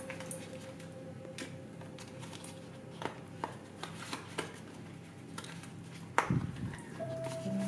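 An emptied paperboard drink carton being folded and creased by hand: scattered crackles and snaps, the loudest a little after six seconds in. Background music comes in near the end.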